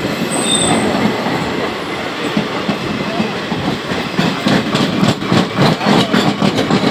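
Two passenger trains passing each other at speed on adjacent tracks, heard from an open coach door: a dense rush of wheel and rail noise from the passing coaches. From about four and a half seconds in, a quick clickety-clack of wheels over rail joints comes through more sharply.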